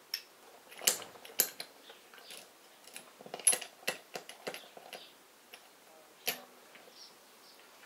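Irregular sharp metal clicks and clinks as the steel spool valves and parts of a U-650 tractor's hydraulic control valve are handled and pulled from the valve body, with a few louder clinks spread through the stretch.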